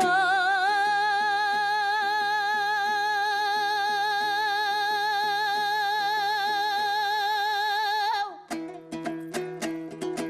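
A singer holds one long, high note with vibrato for about eight seconds over fast dombyra strumming, then breaks off. The dombyra strumming carries on alone.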